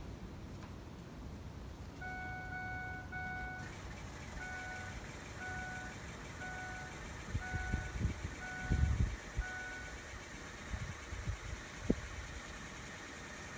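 Truck's in-cab warning chime: one longer tone, then short beeps about once a second for several seconds. A few low thumps come near the end of the chiming, and a sharp click a couple of seconds later.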